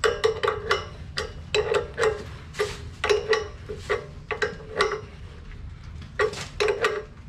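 Wrench clicking and clinking against a metal hose compression fitting as it is turned and repositioned in short strokes to tighten it. About two dozen sharp metallic clicks, each with a brief ring, come roughly four a second, with a short pause just after the middle.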